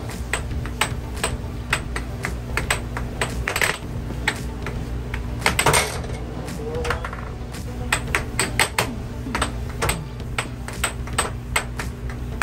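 Air hockey puck clacking rapidly and irregularly off the mallets and table rails in a fast rally, with the loudest burst of hits about halfway through, over the steady hum of the table's air blower.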